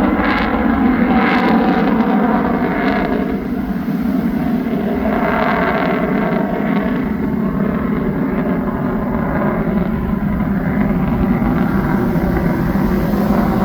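Lockheed Martin F-35B's single F135 jet engine running loud and steady during a demonstration flight, with a rough crackle that swells twice in the first seven seconds.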